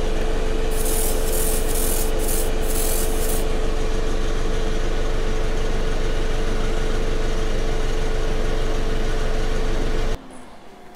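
Four or five short hisses of air from an airbrush in the first few seconds, over the steady hum of a spray booth's extractor fan, which cuts off abruptly near the end.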